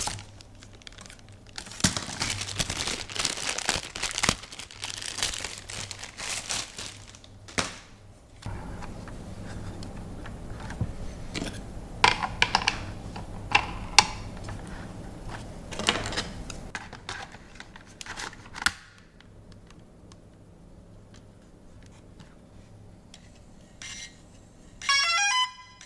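Plastic packaging crinkling and tearing, with small clicks of parts being handled, as new drone propellers are unwrapped and fitted. Near the end comes a quick rising run of electronic beeps, the DJI Phantom 3 Standard's power-on tones.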